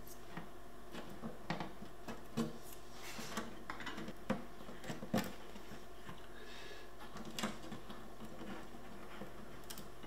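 Irregular small clicks and taps as DIP RAM chips are worked out of and pressed back into their sockets on a microcomputer trainer board, swapping two chips to see whether a stuck-bit memory fault moves with them.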